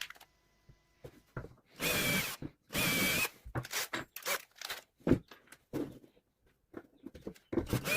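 Power drill working into wood in two short runs, each about half a second, with a steady motor whine. Scattered light clicks and knocks follow.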